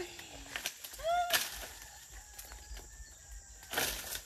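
Brief wordless vocal sounds from a person, a short falling hum at the start and a quick rising-and-falling one about a second in, then a short rustling burst near the end.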